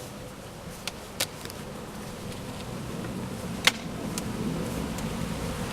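Honeybees buzzing in a steady hum that slowly grows a little louder, with a few sharp clicks, the loudest about two thirds of the way in.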